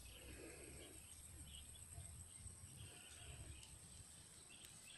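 Near silence: faint field ambience with a low wind rumble and a few faint, scattered bird chirps.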